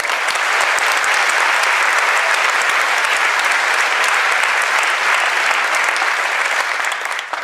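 A large audience applauding loudly, a dense steady clatter of many hands clapping that dies away near the end.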